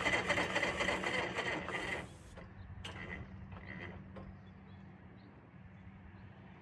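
Electric starter cranking the CAT D4-7U's gasoline pony motor, which does not fire; the cranking stops about two seconds in, followed by a few faint clicks. The owner suspects it would not fire because the magneto switch was left off.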